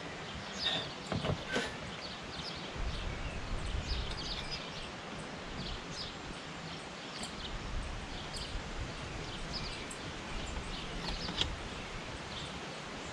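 Outdoor ambience of small birds chirping in short, scattered calls throughout, over a low wind rumble on the microphone. A few light knocks sound in the first two seconds.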